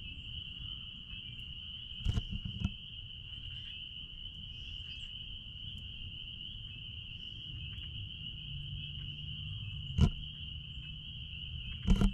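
A dense chorus of spring peepers, their high peeps blending into one steady shrill trill. A few sharp thumps come about two seconds in, near ten seconds and at the very end, over a low rumble.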